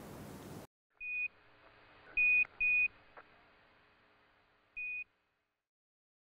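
Four short electronic beeps at one high pitch: one about a second in that swells, two close together a little after two seconds, and a quieter one near five seconds, each trailed by a faint echo.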